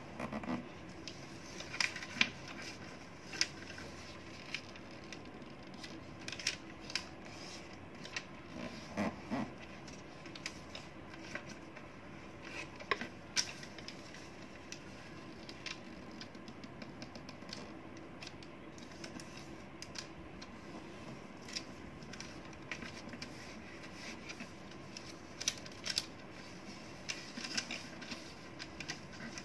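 Origami paper being folded and creased by hand on a tabletop: scattered light crinkles, taps and short scrapes as fingers press down and run along the folds, over a faint steady background hiss.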